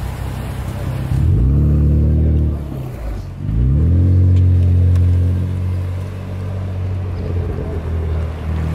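BMW M4's twin-turbo S55 straight-six running through an RPi GTM aftermarket exhaust, accelerating away: the exhaust note rises sharply about a second in, drops out briefly near three seconds, rises again and holds, then eases off and grows fainter as the car moves off.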